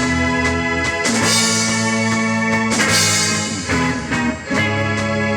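A rock band plays an instrumental passage with guitar and drums, with chords changing every second or so and no singing.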